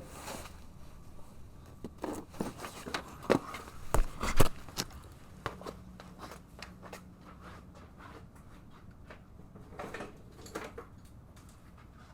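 Scattered clicks, taps and knocks of hand tools and metal parts being handled while working on a car's rear brake and hub assembly. The loudest are two sharp knocks about four seconds in.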